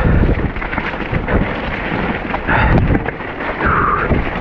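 Mountain bike riding hard down a rough, wet trail: a loud, continuous low rumble on the camera microphone with many knocks and rattles as the bike is jolted over the ground.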